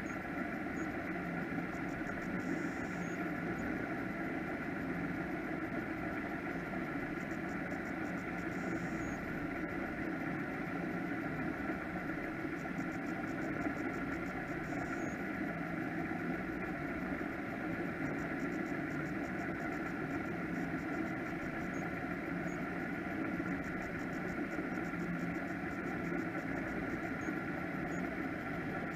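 Offshore powerboat engines idling, a steady, even drone that holds the same pitch throughout.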